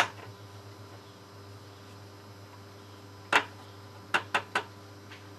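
Chicken drumsticks being turned in flour in a stainless-steel tray: a sharp knock a little past halfway, then three quick light taps, over a low steady hum.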